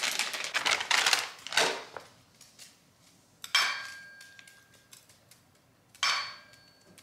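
Dry pet kibble rattling in quick clicks for about two seconds. Then comes two sharp clatters, about two and a half seconds apart, as food drops into stainless steel pet bowls, each bowl ringing briefly after the hit.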